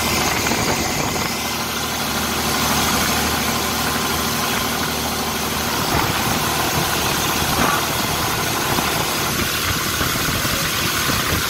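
Boat engine running steadily under way, with water rushing in the wake.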